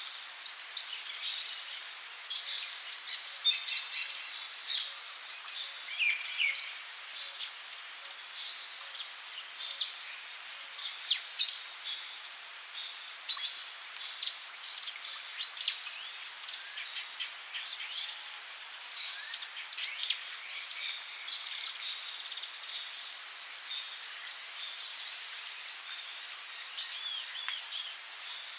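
Amazon rainforest insects and birds: a steady high insect drone with many short bird chirps and whistles over it, busiest in the first two-thirds and thinning out near the end.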